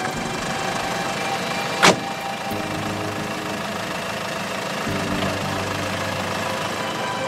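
Taxi's car engine idling steadily, with a car door shutting once, loudly, about two seconds in.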